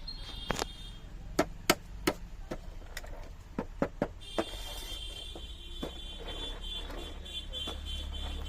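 Large children's toy jeep: a string of sharp plastic clicks, then from about four seconds in a steady high electronic tone with a low hum under it.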